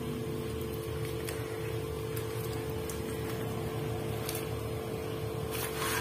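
Steady mechanical hum with one constant tone over a low rumble, and a few faint ticks near the end.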